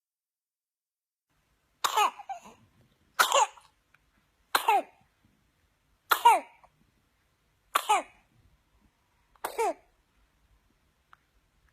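A newborn baby coughing with whooping cough (pertussis): six short coughs, about one and a half seconds apart, each dropping in pitch, starting about two seconds in.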